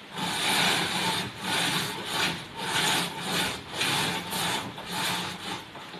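Dual-layer zebra roller blind being lowered by hand-over-hand pulls on its bead chain, the chain rasping through the clutch mechanism in about eight rhythmic strokes, roughly two a second, stopping shortly before the end.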